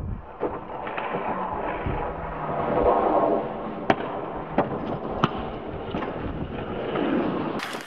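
Downhill longboards rolling and sliding on asphalt while riders crash and slide along the road: a rough, continuous scraping rumble of urethane wheels, slide gloves and leathers on the tarmac, with three sharp clacks about four to five seconds in.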